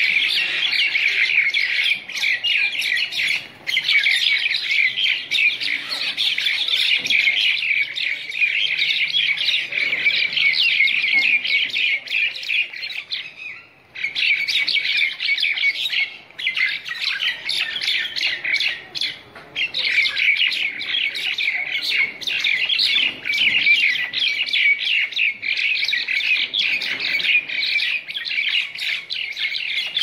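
A group of common mynas calling as they fight: a dense, rapid chatter of short calls packed close together. It breaks off briefly twice, once about three and a half seconds in and once near the middle.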